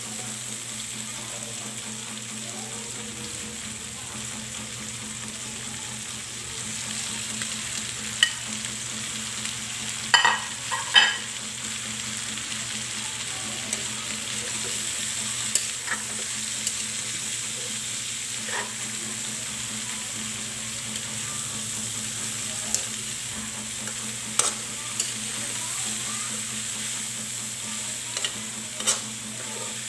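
Pork and vegetables frying in a pan with a steady sizzle, stirred with a utensil that clinks and knocks against the pan now and then, loudest twice about ten seconds in.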